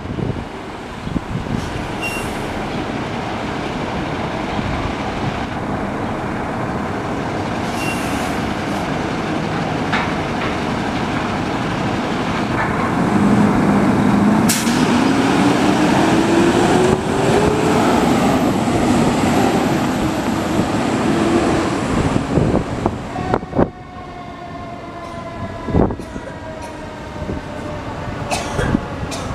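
Fire engine's diesel engine running as it pulls out and drives off, its pitch rising around the middle as it accelerates. In the last several seconds a steady multi-tone warning horn sounds, dropping slightly in pitch.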